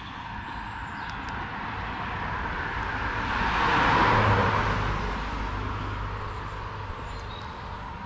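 A car passing by on the road: tyre and engine noise swells to a peak about halfway, then fades away.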